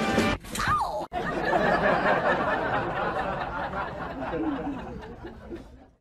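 People laughing and chattering, fading out near the end. Just before, a short cry falls in pitch about a second in.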